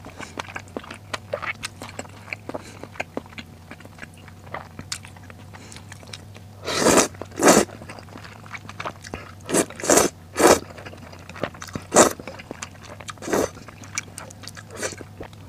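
Close-up eating sounds from a bowl of snail noodles: moist chewing with small mouth clicks, then loud slurps of thick rice noodles. There is a long slurp about seven seconds in and several shorter ones between about nine and thirteen seconds.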